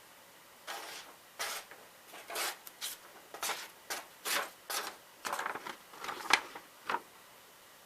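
Knife blade being drawn across a sharpening stone held in a fixed-angle jig: a dozen or so short, scratchy strokes of stone on steel, about two a second.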